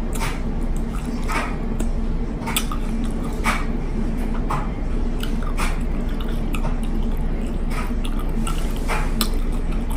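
Close-up chewing of a crunchy mini sweet pepper stuffed with rice and sauce: wet mouth sounds with a sharp click or crunch about once a second, over a steady low hum.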